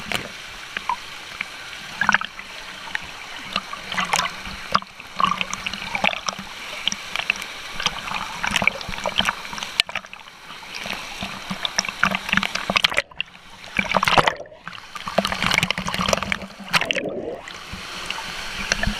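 Water splashing and spattering close to the camera as a swimmer moves through a waterfall pool. The falling water of the waterfall pours over the camera partway through, with brief muffled gaps about two-thirds of the way in.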